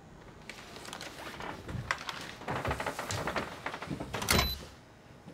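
A door being handled: a string of irregular knocks and rattles, then a louder clunk about four seconds in.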